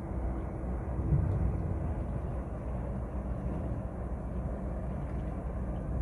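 Steady low rumble of a watercraft engine running.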